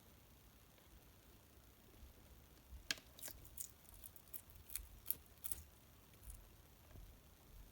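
Veiled chameleon chewing a cricket: a quick run of about ten sharp, crisp-like crunches, starting about three seconds in and lasting about three seconds.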